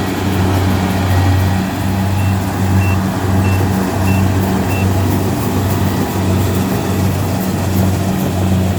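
Kubota DC70 combine harvester's diesel engine running steadily with a deep hum. About two seconds in, five short high beeps come roughly half a second apart, like a reversing alarm.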